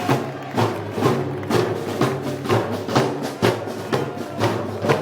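A live festival band playing, with sustained instrumental tones over a steady percussion beat of about two strikes a second.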